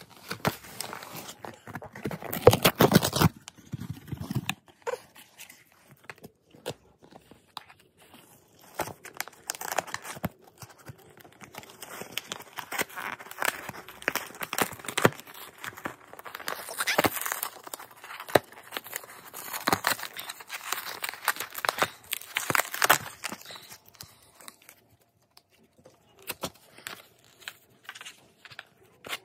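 A small Corgi–Chihuahua mix dog tearing and chewing apart a corrugated cardboard mailing box, with irregular bursts of ripping and crumpling cardboard. The tearing is loudest a couple of seconds in and dies down near the end.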